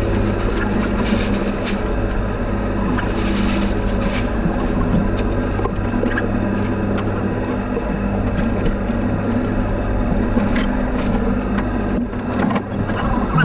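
Steady machinery hum inside a hyperbaric chamber, with a low drone and several held tones. Scattered knocks and rustles come from bags and gear being handled at the steel hatch.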